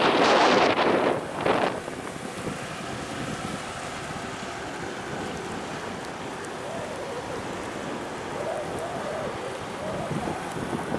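Seaside wind and water: a loud rush of noise in the first second and a half, then steady wind buffeting the microphone over the wash of the sea, with faint wavering tones partway through.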